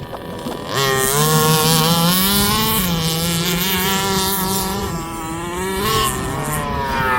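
Small two-stroke petrol engine of a large-scale RC car running hard, coming in about a second in; its pitch steps up and down as it accelerates and eases off, with a falling then rising sweep near the end.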